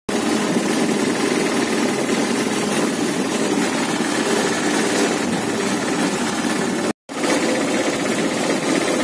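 Engine and road noise from inside a moving vehicle: a steady din that cuts out for a moment about seven seconds in and then resumes.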